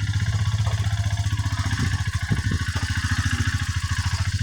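Motorcycle engine running steadily at idle with an even, fast pulsing beat, a few light knocks sounding about two seconds in.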